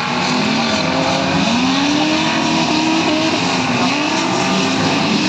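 Street stock race cars running in a pack, several engines rising and falling in pitch as they accelerate and ease off.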